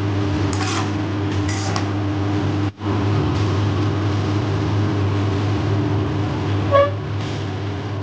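A steady low hum, with a couple of faint scrapes of a spatula on the pan in the first two seconds and a short pitched beep about seven seconds in.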